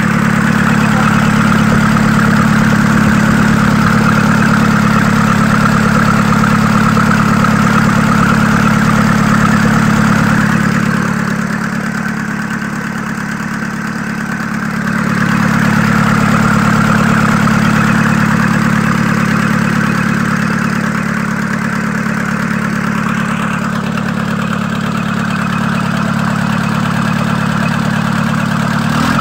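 Mitsubishi Pajero's 4M40 four-cylinder diesel engine idling steadily. Its sound drops for a few seconds about eleven seconds in, then comes back to the same level.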